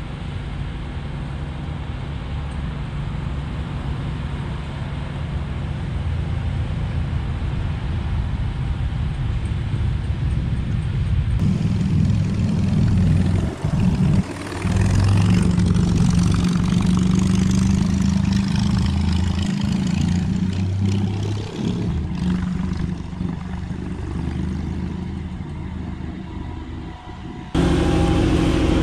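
A vehicle engine running at a steady speed, its pitch wavering a little. The sound changes abruptly about eleven seconds in and again near the end.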